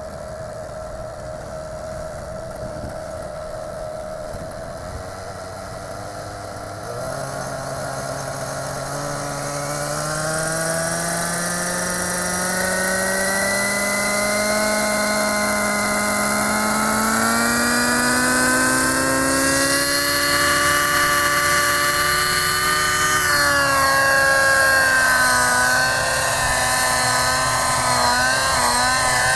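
Gaui NX4 radio-controlled helicopter spooling up on the ground: its rotor and drive whine rises steadily in pitch and grows louder. Near the end the pitch dips, then wavers up and down as the helicopter lifts off and hovers.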